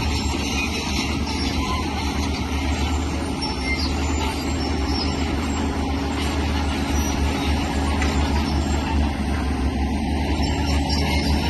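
Diesel engine of heavy earthmoving machinery running steadily with a deep, even rumble.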